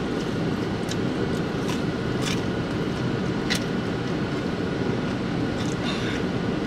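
Steady running noise of a car idling with its air conditioning on, heard inside the cabin. A few brief clicks and smacks from eating off a fork and sipping through a straw come through it.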